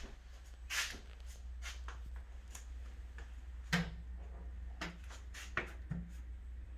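A door being swung open and footsteps on a vinyl plank floor: a handful of short, scattered knocks and clicks over a steady low hum.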